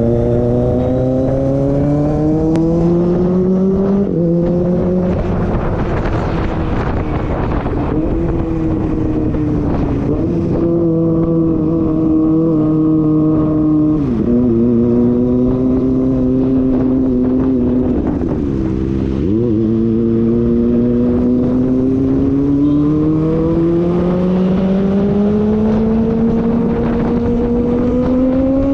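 Motorcycle engine under way, its pitch climbing as it pulls, then falling sharply as it shifts or the throttle eases. This happens about four seconds in, and with brief dips about fourteen and nineteen seconds in. After that it climbs slowly again toward the end.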